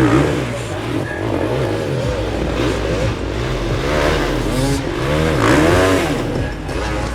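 Enduro motorcycle engines revving up and down again and again in short throttle bursts, more than one bike at a time, as riders work through rough off-road ground.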